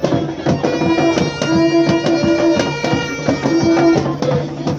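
Loud, drum-driven jab jab carnival music: a quick, steady drum beat with held pitched notes sounding over it in stretches.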